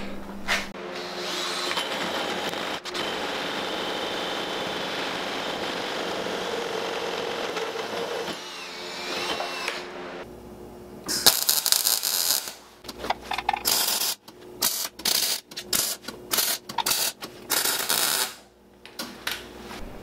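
A power tool runs steadily for about the first ten seconds. Then a MIG welder tacks an engine mount to a mini bike's steel frame: one longer weld of about a second and a half, followed by a string of short welding bursts.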